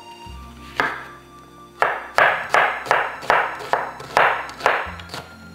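Knife chopping an onion on a cutting board: one cut about a second in, then a run of about eight even chops, a little more than two a second. Soft background music plays underneath.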